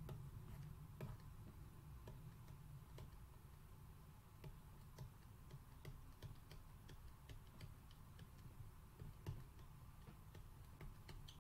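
Faint, irregular ticks and taps of a stylus tip on a tablet screen as handwriting is drawn, several a second, over a low room hum.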